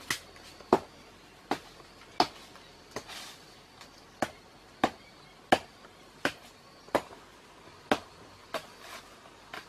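Footsteps crunching through dry leaf litter and twigs, a sharp crackle with each step, about one and a half steps a second.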